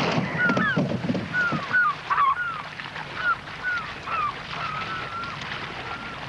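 A flock of geese honking: a dozen or so short calls scattered through, thinning out towards the end, with a loud rushing burst right at the start.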